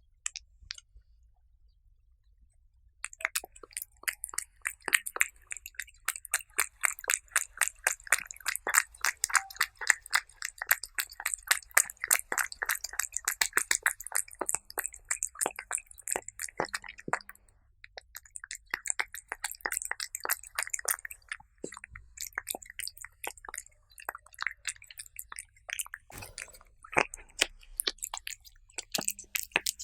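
Cats eating close to the microphone: rapid, continuous chewing clicks that start about three seconds in, with a brief pause a little past halfway.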